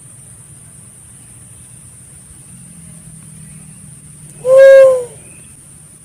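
Pink-headed fruit dove (walik kepala ungu) giving a single low hoot, played as a lure call. The hoot lasts about half a second and dips slightly in pitch at the end. A steady high hiss runs behind it.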